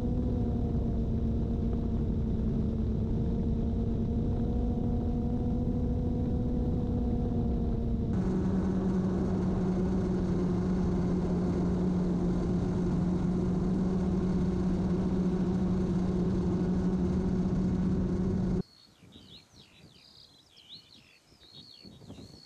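GoPro Karma quadcopter's motors and propellers humming steadily as heard from its own camera, a few held tones whose pitch shifts slightly about eight seconds in. The hum cuts off abruptly a few seconds before the end, leaving faint outdoor sound with small birds chirping.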